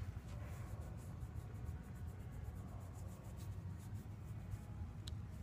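Quiet room tone: a steady low hum with faint soft ticks and rustling, and one small sharp click near the end.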